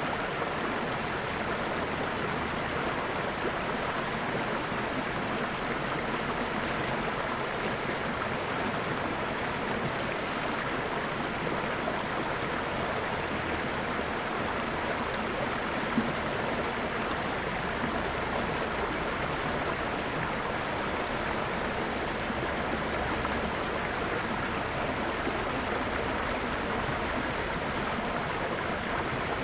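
Natural running water, a stream flowing with a steady, even rush that does not change.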